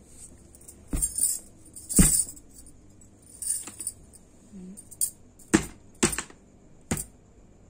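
A small plastic light-up ball being knocked and bounced in an attempt to set off its blinking light. There are several sharp knocks, some followed by a brief jingling rattle.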